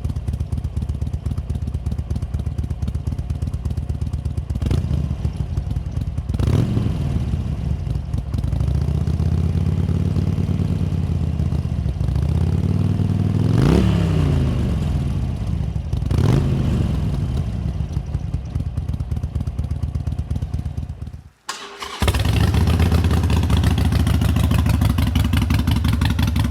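Harley-Davidson Sportster Iron 883's air-cooled V-twin running through Vance & Hines Short Shots Staggered exhaust, just after starting on a fresh Fuel Pak FP3 tune. It idles with a steady beat and is revved several times with quick throttle blips and one longer rise and fall. A little past twenty seconds the sound briefly cuts out, then the engine is heard again, louder.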